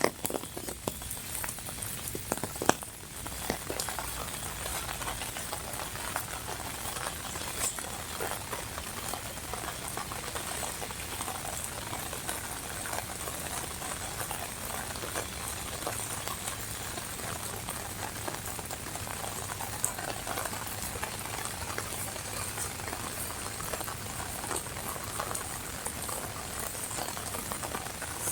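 Steady rain pattering, a dense crackle of drops, with a few sharper taps in the first three seconds.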